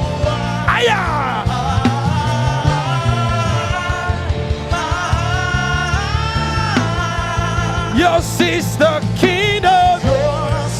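Live gospel worship band playing, with steady bass and drums under a melodic lead line of bending, gliding notes and some singing.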